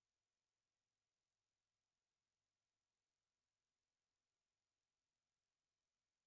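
A very high-pitched electronic crow-repellent sound at the top edge of hearing, flickering rapidly and unevenly. It imitates crows' alarm calls, sped up about three times and raised into their overtone range.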